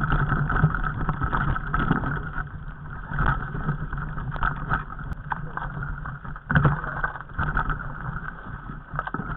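Mountain bike riding over a rocky trail: a steady rumble with rattling and repeated knocks from the bike and the jolted camera, one sharper knock well after the middle.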